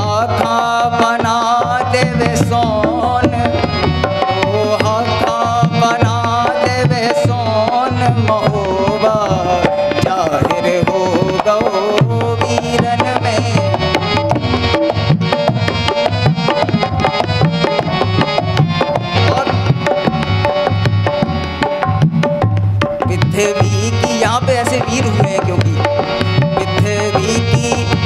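Harmonium melody over a steady tabla and dholak rhythm, an instrumental passage of a Bundeli folk song accompaniment.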